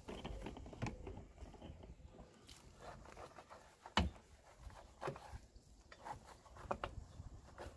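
A foam-covered alloy wheel being scrubbed by hand with a wash mitt and a wheel brush: soft wet rubbing with scattered clicks and knocks, the loudest a sharp knock about four seconds in.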